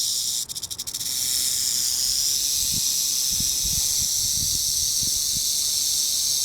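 Southern Pacific rattlesnake rattling: a steady, loud high-pitched buzz from its tail rattle, stuttering on and off for a moment about half a second in before running on steadily. It is the snake's defensive warning as it is approached.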